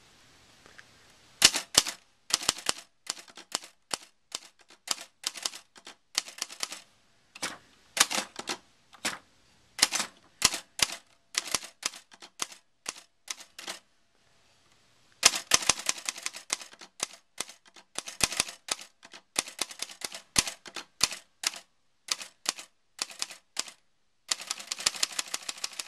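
Late-1960s Hermes Rocket portable manual typewriter being typed on one-handed: typebars striking the platen one at a time at an uneven pace of roughly two a second, with a pause of about a second partway through and a denser clatter near the end.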